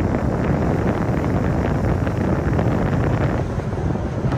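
Wind buffeting the microphone aboard a moving motorboat, a steady rush with the boat's engine and water noise underneath.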